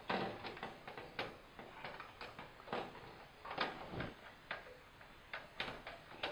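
Irregular light clicks and taps of an LED T8 tube's end pins and plastic end cap in a fluorescent fixture's tombstone sockets, as the tube is seated and twisted into place.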